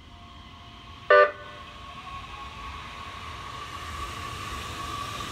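Nishitetsu 3000 series electric train giving one short horn toot about a second in, then pulling out of the station, its steady motor whine and running noise growing louder as it picks up speed.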